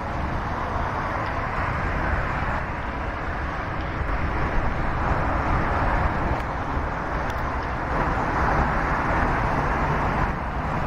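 Steady vehicle noise: a low rumble under a rushing roar that swells and eases slowly, with no distinct events.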